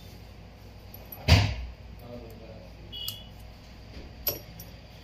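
Small hand tools handled on a bench work mat: one dull thump about a second in, then two light clicks.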